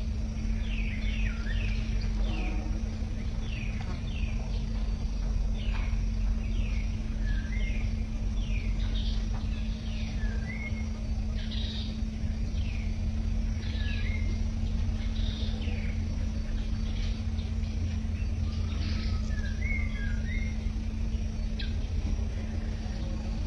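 Small birds chirping: a string of short falling notes, about one every second, over a steady low hum and rumble.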